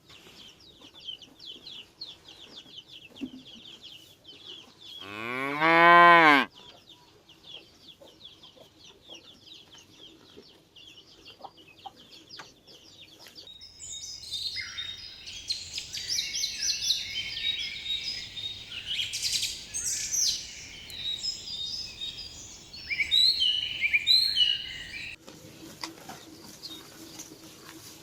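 A cow moos once, loudly, about five seconds in, over a faint high trill. From about halfway, many birds chirp busily, then stop abruptly near the end.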